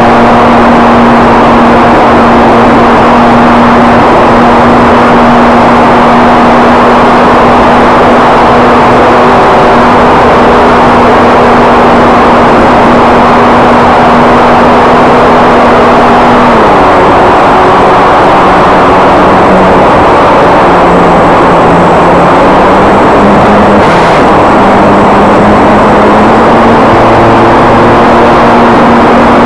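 RC plane's motor and propeller heard through the onboard camera's microphone, a loud steady drone with heavy wind rush. Its pitch drops a little over halfway through, wavers, then rises again near the end as the throttle changes.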